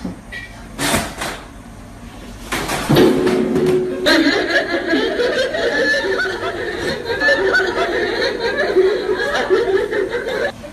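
A chair pulled out from under a seated man, with knocks about one and three seconds in as he drops to the floor, then loud laughter from several people until it cuts off suddenly near the end.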